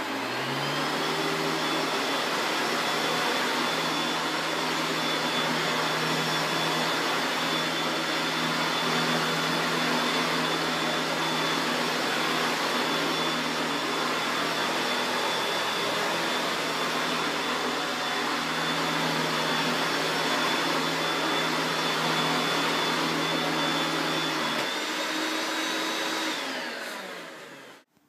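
1987 Hoover Turbomaster Electronic U5080 upright vacuum cleaner running on carpet. Its motor whine rises in pitch in the first second, then holds steady, high over a low hum. Near the end it winds down with falling pitch.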